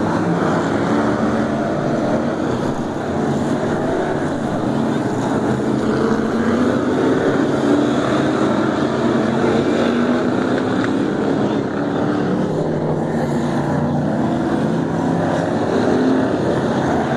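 Several winged oval-racing stock cars' engines running together at racing speed. Many overlapping engine notes rise and fall as the cars accelerate and lift around the oval, at a steady, loud level.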